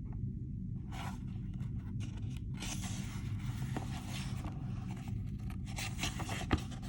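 Rustling and scraping of paper as a picture book's pages are handled and turned, in irregular patches with a few light clicks, over a steady low background hum.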